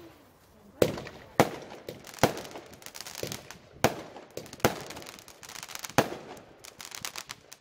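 Dr Thrust 25-shot firework barrage cake firing: about six sharp bangs, irregularly spaced roughly a second apart, with smaller cracks and crackling between them. The crackling thins out after the last bang as the cake's final shots die away.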